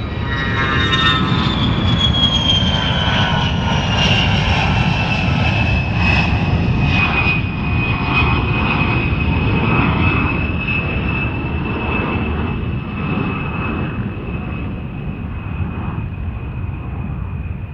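Aircraft engine running with a heavy low rumble and a high whine that falls in pitch over the first several seconds, then holds steady while the sound eases slightly toward the end.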